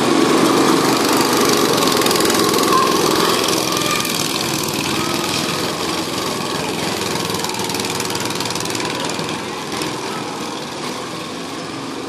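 Go-kart engines running as the karts pass close by, then fading as they drive off round the track.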